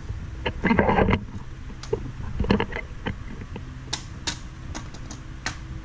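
Handling noise from an Iwatani ZM-1 portable butane stove being unfolded by hand: metal parts clatter and scrape about a second in and again around two and a half seconds. Several sharp clicks follow as the serrated pot-support arms are moved into place.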